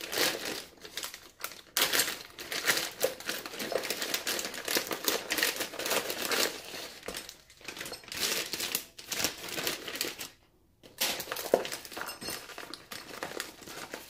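Plastic shipping bag and metallic bubble mailer crinkling and rustling in irregular bursts as they are handled and opened, with a short pause about ten seconds in.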